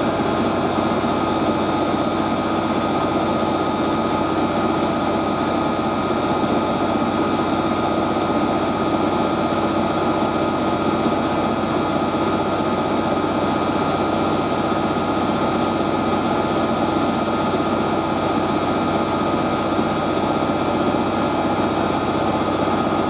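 Hoover A3060 Electronic 1100 washing machine spinning at high speed in its final spin: a loud, steady whine and rush from the motor and drum, holding an even pitch.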